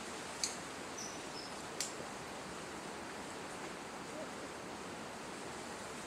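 Red-capped manakin displaying: two sharp snaps about a second and a half apart, typical of the male's wing snaps, with a short high two-part note between them. Under it all is a steady forest hiss.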